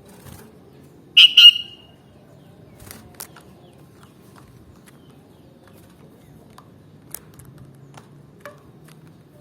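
Sooty-headed bulbul giving a short, loud two-note call about a second in, followed by a few faint ticks against a steady low background hum.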